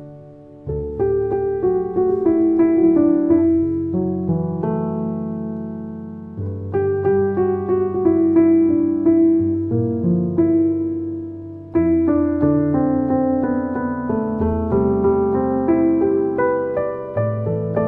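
Spectrasonics Keyscape Double Felt Grand sampled felt piano on its 'Dark' preset, played as slow, sustained chords with a melody on top. New chords come in about a second in, around six seconds in and near twelve seconds in.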